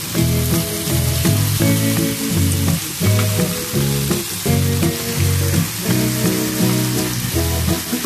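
Steaks sizzling and frying in a ridged grill pan: a steady hiss, under background music that plays low notes in an even rhythm.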